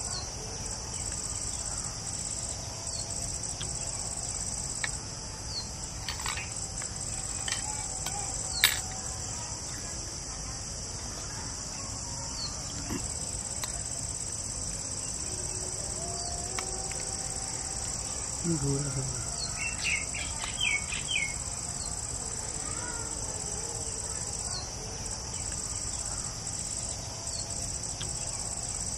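Steady high-pitched insect chorus in trees and grass, with occasional short bird chirps. A few sharp clicks, the loudest about nine seconds in, as metal spoons tap clay bowls.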